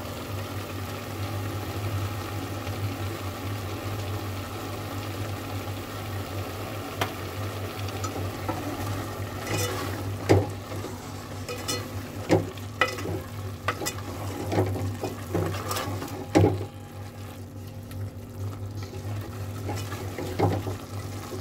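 Metal ladle stirring and scraping mince and peas in a metal pot over a steady low hum and light frying sizzle. In the middle stretch there are sharp clicks and knocks of the ladle against the pot.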